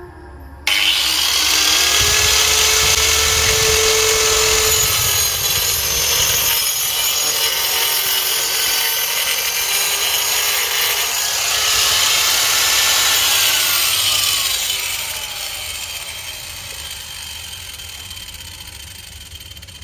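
Angle grinder converted into a circular saw, its blade cutting wood with a loud whine that sags under load. Starts suddenly a little under a second in; in the last third the motor's whine falls steadily in pitch and the sound fades as it winds down.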